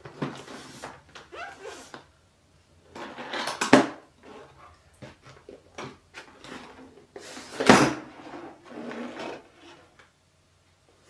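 A laptop's cardboard retail box being handled and opened by hand: cardboard sliding and rubbing as the lid comes off. Two sharp knocks stand out, about a third of the way in and again about two-thirds through.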